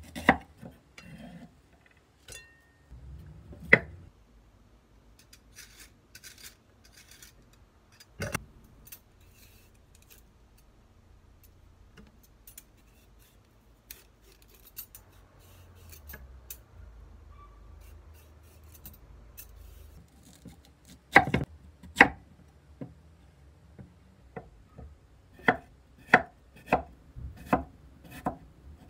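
A wide kitchen knife chopping vegetables on a wooden cutting board. A few knife strokes come first, then a vegetable peeler scraping the skin off a root vegetable, much quieter. Then two loud knocks and a quick run of chops near the end.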